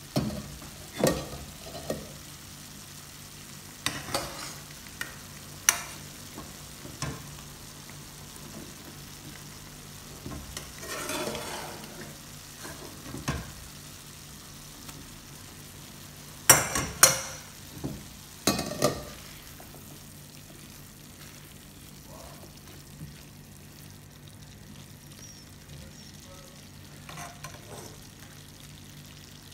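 A utensil knocking and scraping against a nonstick frying pan of thick vegetable curry sauce as chickpeas are added and stirred in. Sharp knocks come every few seconds, with a short rustle about a third of the way through and the loudest pair of knocks about two-thirds through, over a low steady background.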